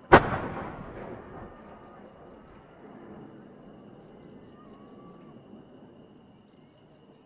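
Aerial firework shell fired from its mortar: one sharp, loud launch bang just after the start, echoing away over a second or two, then a low background hush while the shell climbs.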